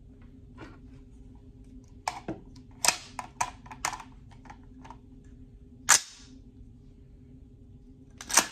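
Metal clicks and clacks of an AR-15-style rifle in .350 Legend being worked by hand: a run of small clicks as the magazine is handled and seated, a single sharp clack, then two sharp clacks close together near the end as the charging handle is pulled back and the bolt let go. The round hangs up instead of chambering, a feed failure.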